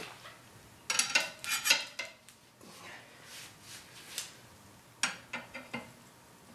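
Steel tire iron clinking and scraping against the alloy rim and the tire changer's mounting head while the bead of a stiff run-flat tire is levered over. A quick cluster of metal clinks comes about a second in, then quieter scraping, then a few more clinks near the end.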